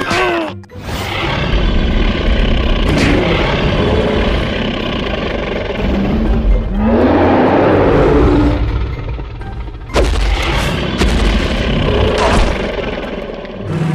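Cartoon fight sound effects over music: heavy rumbling booms, a long creature roar about seven seconds in, and a sharp hit about ten seconds in.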